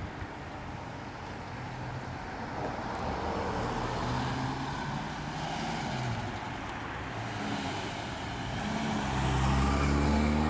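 Cars driving past one after another. About halfway an engine sound swells and falls away as a classic car and a van go by, and near the end another classic car's engine grows loudest as it comes close.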